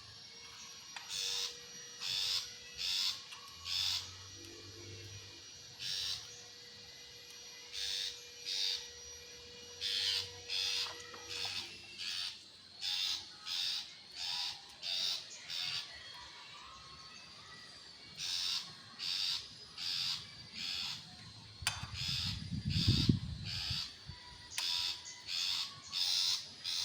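Long-tailed shrike (cendet) singing: a long string of short, harsh repeated notes, about one to two a second, broken by a few pauses. A brief low rumble about 22 seconds in.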